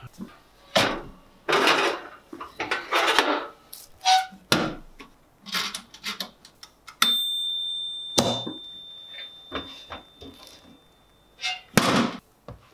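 Russell Hobbs toaster oven being worked: clicks and clunks of its door and knobs, then about seven seconds in a single bell ding that rings on and fades over a few seconds, which is the timer signalling that the toast is done. Near the end, metal tongs clatter in the oven as the toast comes out, and there is a knock as it is set on a wooden chopping board.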